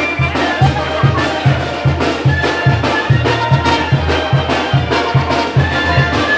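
Brass band music of the kind played for chinelo dancing: horns hold and trade melody notes over a steady low beat of about three pulses a second.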